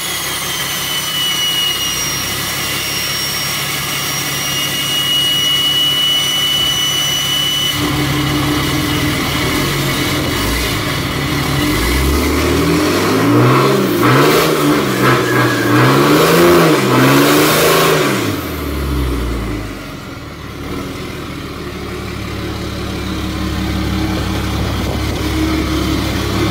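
Dodge Ram's Cummins turbodiesel doing a burnout: it runs steadily with a high whistle, then revs up and down several times while the rear tyres spin for several seconds, the loudest part. The revs drop, then the engine picks up again near the end as the truck pulls away.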